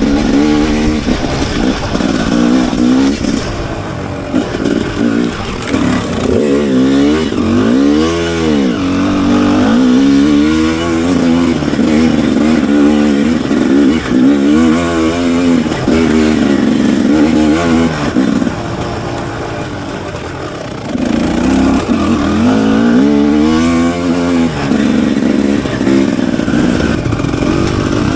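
Enduro motorcycle engine running and revving up and down over and over. It eases off for a couple of seconds past the middle, then picks up again.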